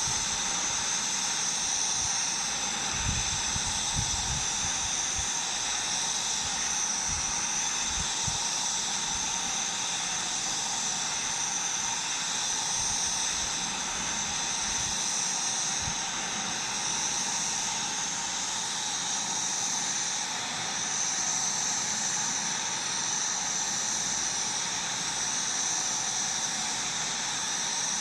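Welding arc on pipe, a steady frying hiss that holds without a break, with a few dull low knocks a few seconds in.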